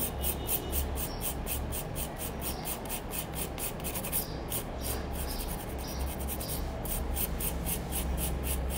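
Hand nail file rasping over a gel nail in quick, even back-and-forth strokes, several a second, as the nail is shaped.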